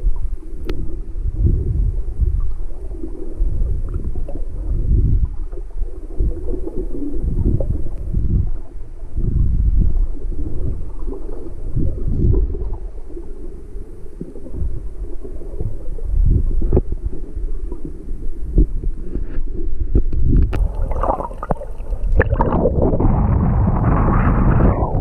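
Muffled underwater rumble of water moving around a submerged camera, coming in uneven low surges. About three seconds from the end the camera breaks the surface with splashing, and the hiss of wind and choppy sea waves takes over.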